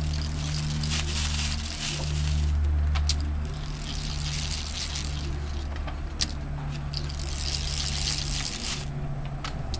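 Mini roller blind being drawn down by hand: the fabric rustles and scrapes in several spurts, with a few sharp clicks, over a steady low hum.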